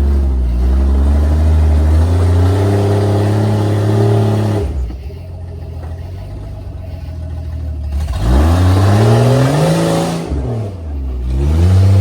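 Off-road vehicle's engine revving hard, its pitch climbing for over four seconds, then dropping off abruptly and easing for about three seconds before it climbs again, dips, and climbs once more near the end.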